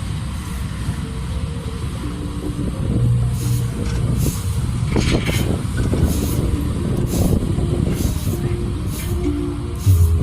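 Heavy diesel machinery running steadily, with the low rumble of a large engine.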